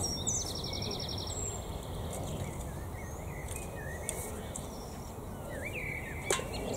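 Garden rake scraping through loose bare soil, with birds singing around it: a rapid high trill in the first second or so and short chirps and whistles near the end. A single sharp click comes about six seconds in.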